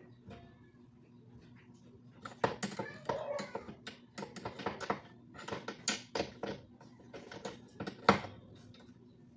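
Metal clicks, knocks and rattling of a scissor-arm microphone boom stand being handled and moved in its table clamp. The clicking starts a couple of seconds in and comes in quick irregular runs, with the sharpest knock near the end.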